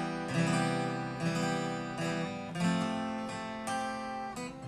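Acoustic guitar strummed, with chords ringing and fresh strums about once a second.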